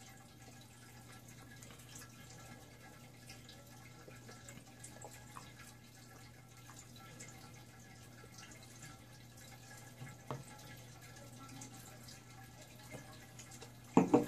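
Quiet room tone with a steady low hum and a few faint scattered clicks, then one short, louder knock near the end.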